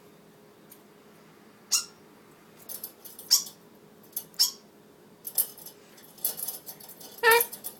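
A small bird chirping: short, high, falling chirps about once a second. Near the end come a few lower, squeaky voiced calls, a person's imitation of the bird.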